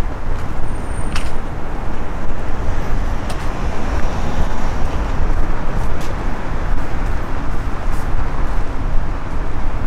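Road traffic noise: a steady, loud rush of cars passing close by, swelling slightly midway through.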